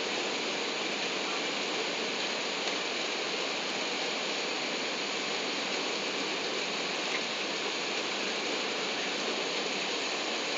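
Steady rushing cabin noise of an Airbus A380 on final approach, heard inside the upper deck over the wing. It stays unchanged in level throughout.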